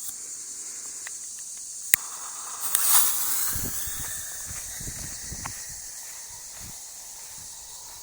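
A consumer ball shell is launched from its mortar tube about three seconds in: a brief whooshing thump as the lift charge fires. It is preceded by a sharp click and sits over a steady high hiss of insects.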